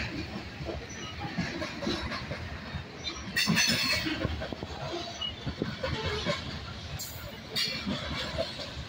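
Covered hopper cars of a freight grain train rolling past, steel wheels rumbling on the rails, with louder surges about three and a half and seven seconds in.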